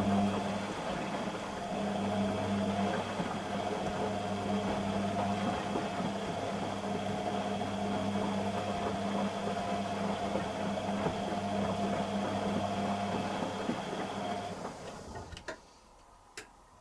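Beko WTG620M1 washing machine running with a steady low hum and whir, which stops about fifteen seconds in, followed by two sharp clicks.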